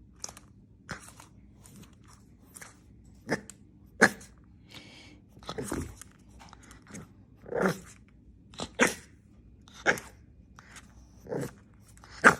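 A dog chewing and crunching: about a dozen short, sharp crunches at irregular intervals.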